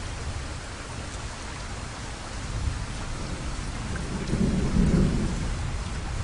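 Toyota Land Cruiser Prado wading through floodwater: water washing and sloshing around its wheels over a low rumble that swells to its loudest about four to five seconds in.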